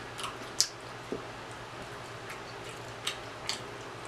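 Eating sounds: fingers pulling apart sauced rotisserie chicken and mouth smacks and chewing, heard as about five short wet clicks and smacks over a faint low hum.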